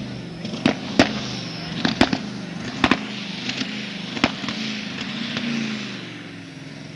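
A modified pulling tractor's engine running, broken by a series of loud, sharp, irregular bangs over the first few seconds. The engine note swells briefly about five seconds in, then drops away.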